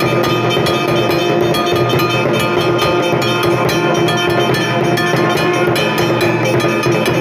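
Hindu temple bells ringing rapidly and continuously, many clanging strikes a second over a sustained ringing hum.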